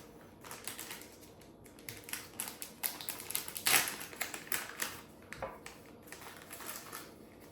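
Kitchen handling noise: irregular light clicks and taps of utensils and containers against a bowl and counter as dry seasonings go into a flour mix, with one louder, longer scrape a little after the middle.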